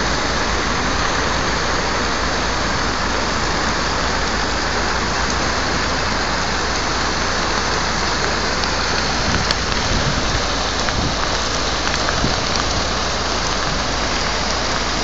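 Heavy rain pouring steadily in a storm: a dense, even hiss with a low rumble underneath.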